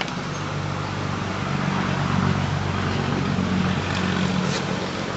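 A car engine running at idle, its low hum strengthening a little about a second and a half in, with a steady hiss over it.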